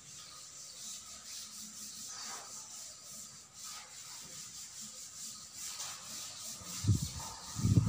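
A cloth duster wiping a chalkboard in repeated soft rubbing strokes. A few dull thumps come near the end.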